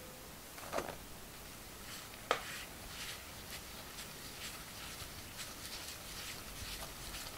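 Spatula mixing cream cheese and powdered sugar in a glass bowl: two light knocks against the bowl about one and two seconds in, then soft, quick scraping and rustling.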